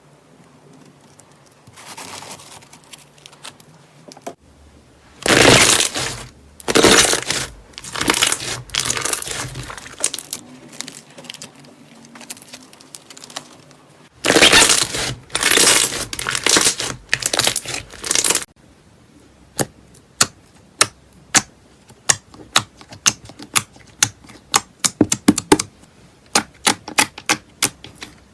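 Slime being pressed and pulled by hand, with two loud stretches of handling noise, then a fast, uneven run of sharp clicks and pops through the last third.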